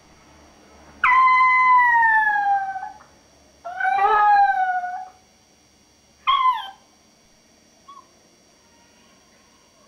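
Maltese puppy howling: a long howl that slowly falls in pitch, a second howl soon after, then a short third call about six seconds in.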